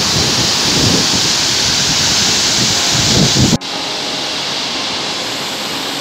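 Loud, steady roar of Laton Waterfall, about 105 m high, crashing into its rocky plunge pool, with wind buffeting the microphone. About three and a half seconds in it cuts abruptly to a quieter, steadier rush of the falls heard from farther off.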